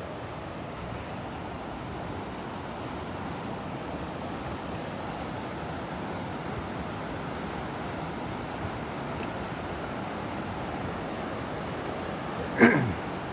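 Steady rushing noise of water, with a single short loud thump that drops quickly in pitch near the end.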